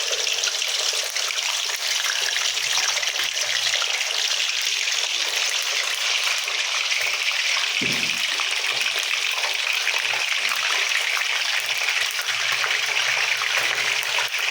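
Fish frying in hot oil just after going into the pan: a steady sizzle with fine crackling.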